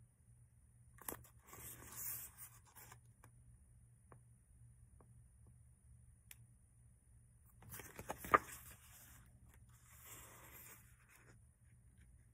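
Faint rustling of a paperback book's paper pages as the book is handled and a page is turned, in three short spells, the middle one with a sharp tap.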